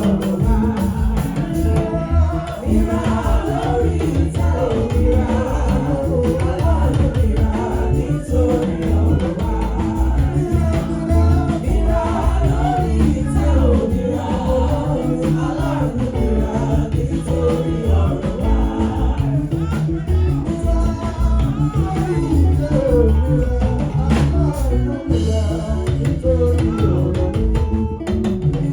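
Church worship song: group singing a melody over bass and drums with a steady beat.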